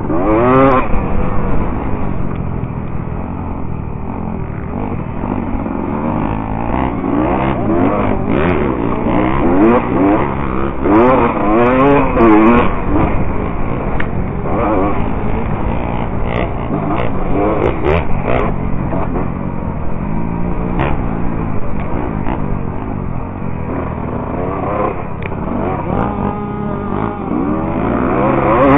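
Dirt bike engine recorded from the bike itself, revving up and dropping off again and again as the rider works the throttle and gears around the track. Scattered knocks and clatter come from the bike over the rough dirt.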